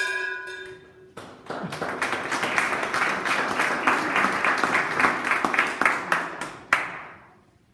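Small audience applauding: several people clapping for about five seconds, then one last sharp clap and the clapping stops. A held musical tone sounds at the very start and cuts off about a second in.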